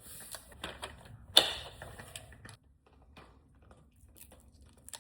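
Plastic parts of a cordless stick vacuum being handled and clicked together during assembly, with one sharp snap about a second and a half in, then only faint light taps.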